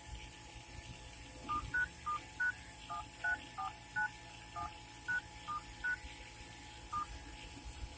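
Phone keypad (DTMF) tones: about a dozen short two-tone beeps at an uneven typing pace as digits are keyed into a smartphone's dialer.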